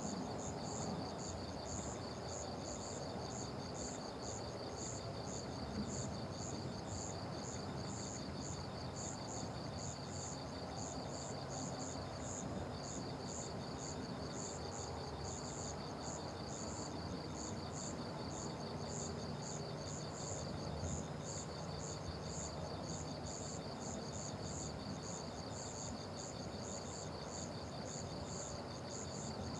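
Crickets chirping steadily: a high chirp repeating two to three times a second over a faster, lower trill that pauses briefly twice, with a faint steady background hiss beneath.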